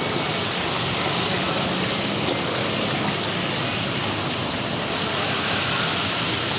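Steady hiss of street ambience with passing traffic, and a few faint clicks about two, three and a half and five seconds in.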